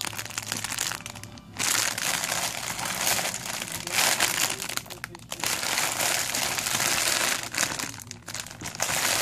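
Packaging of hair-extension bundles crinkling and rustling as they are handled, in several bouts with short breaks.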